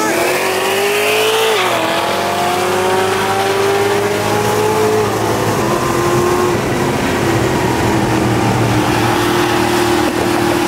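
V8 street cars at wide-open throttle in a roll race. The engine note climbs, drops at a gear change about a second and a half in, climbs again through the next gear, then holds a steady pull.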